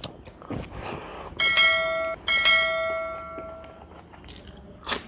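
Notification-bell sound effect from a subscribe-button animation: a click, then two bell dings about a second apart, the second ringing on and fading out.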